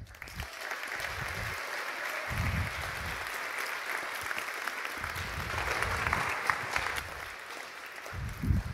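Audience applauding at the end of a talk, thinning out over the last couple of seconds, with a few low thuds, the loudest near the end.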